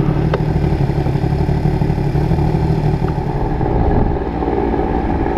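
Engine running steadily with a low, even drone.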